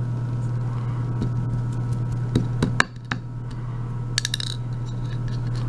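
Small metal lock pins and springs dropping out of a disassembled euro cylinder, giving a few light clinks and clicks over a steady low hum.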